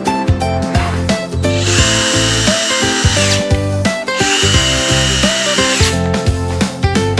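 Upbeat background music with two steady machine-like whirs, each just under two seconds long, one starting about one and a half seconds in and the other about four seconds in.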